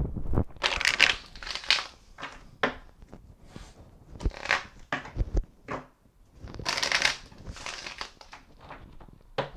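A deck of dragon oracle cards being shuffled by hand, hand to hand, in several short bursts with brief pauses between.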